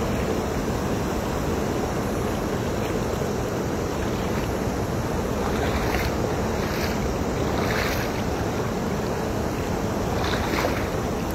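Steady rushing noise of wind on the microphone and river water, with a few short water splashes about halfway through and again near the end as a cast net is worked in the water.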